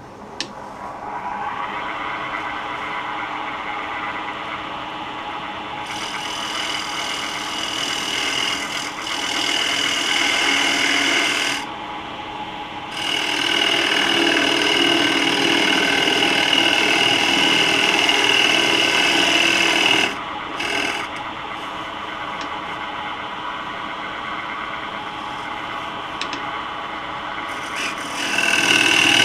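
Turning tool cutting into a wooden disc spinning on a Laguna Revo 12/16 lathe, hollowing a recess in its face: a steady scraping, shaving noise. It breaks off briefly twice, about 12 and about 20 seconds in, and runs lighter for a while after the second break.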